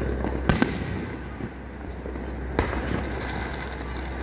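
Aerial firework shells bursting overhead: two sharp bangs close together about half a second in, then another about two and a half seconds in.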